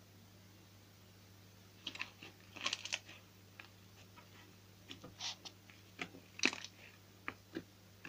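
Slime being squeezed and poked by hand: irregular crisp crackles and small pops, starting about two seconds in.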